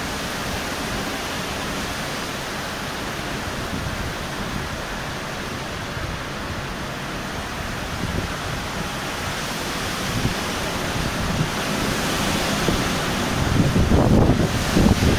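Heavy rain and strong wind of a severe thunderstorm: a steady rushing noise that grows louder over the last few seconds, with gusts buffeting the microphone near the end.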